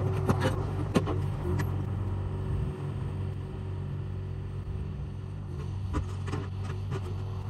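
Mini excavator's diesel engine running steadily, with sharp knocks in the first second and again around six seconds in.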